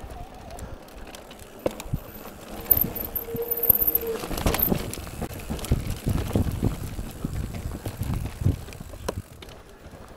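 Mountain bike riding over a rough trail: irregular knocks and rattling from the bike and tyres on the bumps over a low rumble, with a brief high squeal about three seconds in. The clatter is busiest in the middle.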